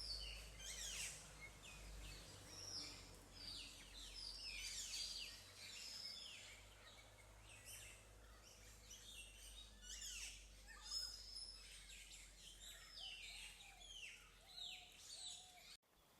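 Several small birds singing faintly, a steady chatter of quick, high, falling chirps and whistled notes that cuts off abruptly near the end.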